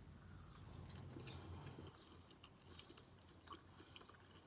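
Faint close-up chewing of Panda Express walnut shrimp, with small irregular wet clicks of the mouth.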